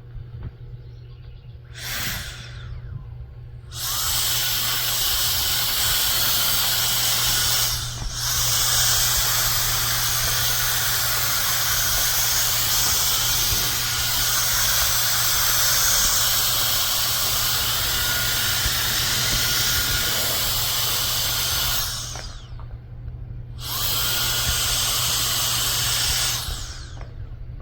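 A cordless electric air duster with a brushless motor is blowing with a high hiss. There is a short blast about two seconds in, then a long run with a brief dip, and a second shorter run near the end. Each run trails off as the motor spins down.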